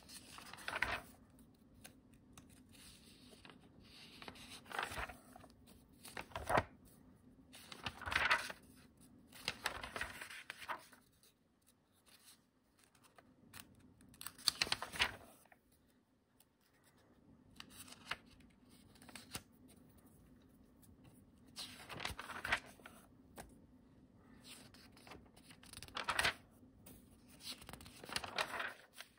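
Pages of an old bound stamp journal being turned by hand: dry paper rustling in short irregular bursts every few seconds.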